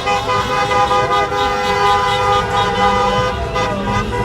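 Several car horns honking at once in long, overlapping held blasts. Shorter tones rise and fall among them.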